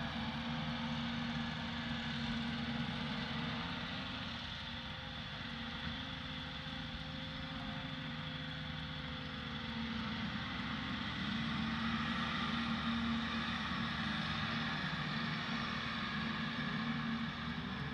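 Diesel engine of a self-propelled dry fertilizer spreader running steadily as the machine drives across the field, growing a little louder about two-thirds of the way through as it comes nearest.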